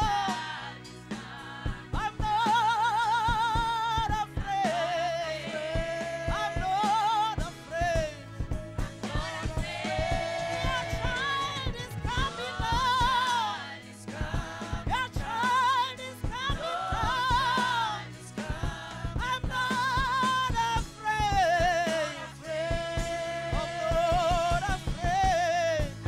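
Gospel worship song: a solo singer with a wide vibrato over keyboard-like accompaniment and a steady beat.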